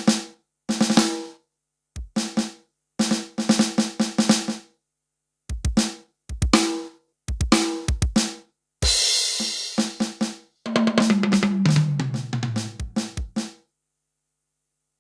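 Yamaha PSR-S770 arranger keyboard playing its drum-kit sounds in short phrases with silent gaps between them: quick snare hits and rolls, a cymbal crash about nine seconds in, then a fill that falls steadily in pitch.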